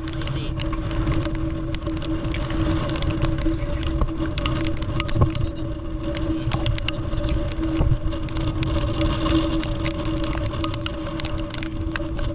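Boat engine running steadily, a drone at one even pitch under a rushing noise, with many small sharp crackles throughout.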